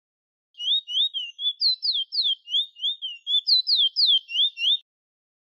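Chestnut-bellied seed finch (the Caribbean 'bullfinch' or towa towa) singing a rapid run of clear whistled slurs, about four a second. Lower rising notes alternate with higher falling ones. The song starts about half a second in and breaks off near the end.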